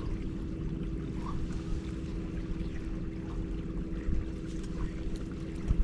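A motor running steadily with a constant hum over a low rumble.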